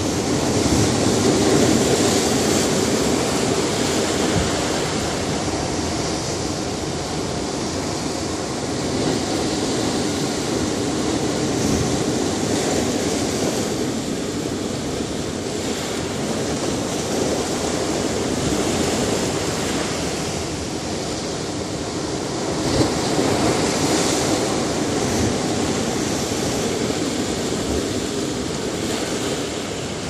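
Ocean surf breaking and washing over rocks, a steady rushing that swells and ebbs, louder near the start, around ten seconds in and again around twenty-three seconds in, with one short sharp crack about twenty-three seconds in.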